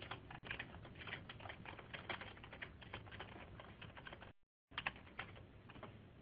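Faint computer keyboard typing: a quick, uneven run of key clicks, broken by a short gap about four seconds in.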